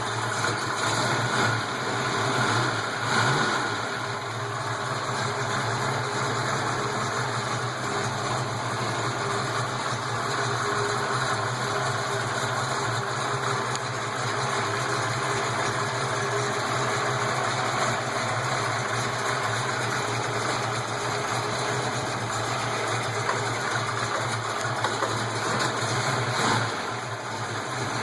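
331 V8 engine idling steadily just after a cold start, with the lifter tick that is usual before oil pressure and temperature come up. It swells slightly a few times.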